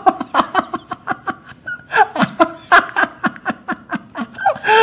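People laughing hard in quick repeated bursts. A long falling vocal sound comes near the end.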